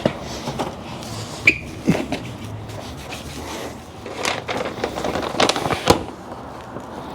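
Scattered clinks, taps and rubbing of hand tools against metal steering parts, one brief metallic ring about a second and a half in and a busier run of clicks and knocks near the end.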